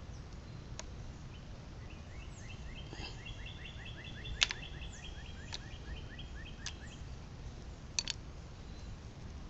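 A bird trilling in the background: a rapid string of short high chirps, about six a second, for several seconds. Over it come a few sharp clicks, the loudest about four and a half seconds in.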